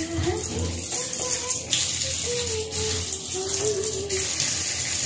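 Tap water running steadily and splashing into a plastic colander and a steel sink while cauliflower florets and potato pieces are rinsed by hand. Faint background music plays underneath.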